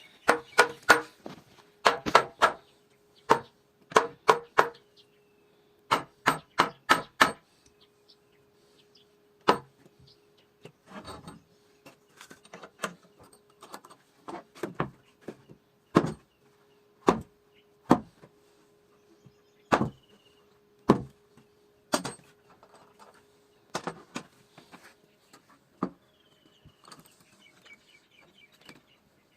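Hammer blows on wood. Quick runs of three or four strikes come first, then mostly single strikes about a second apart, with a faint steady hum underneath.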